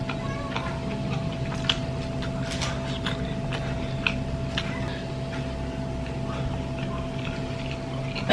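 Quiet eating sounds: scattered small clicks and soft chewing over a steady low hum.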